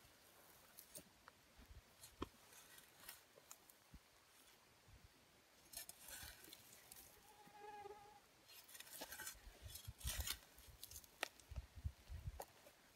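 Small camp shovel scraping and chopping into dry, stony ground in faint, irregular strokes.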